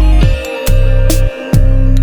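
Background electronic dance music with a heavy, pulsing bass and quick falling bass sweeps. The bass drops out briefly twice, about half a second in and about a second and a half in.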